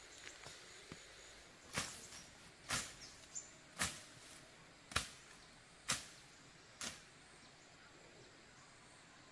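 Machete slashing through grass and brush: six sharp swishing cuts about a second apart, then stopping.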